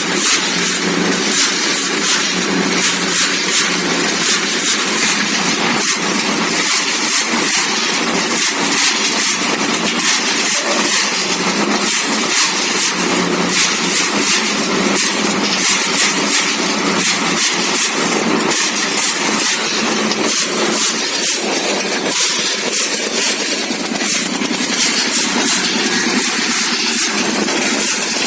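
A small motor running steadily with a fast, even rattle, as from a miniature model truck's motor and gears.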